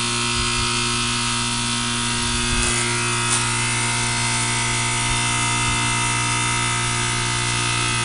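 York heat pump's reciprocating compressor running in defrost mode with the outdoor fan stopped, giving a steady electric hum with a high whine above it.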